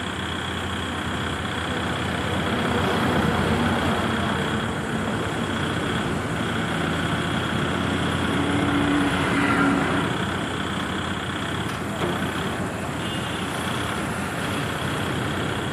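Kubota MU5502 tractor's four-cylinder diesel engine running steadily while the front loader's hydraulics lift the bucket, the engine note swelling slightly under the load.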